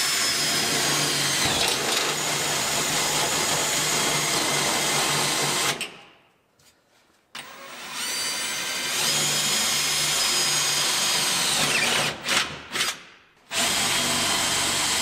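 Cordless drill with a step bit boring through a car's bare sheet-metal floor pan. It runs in two long stretches, split by a pause of about a second and a half, with the motor's whine dropping in pitch toward the end of each stretch. A few short stop-start bursts follow before it runs steadily again.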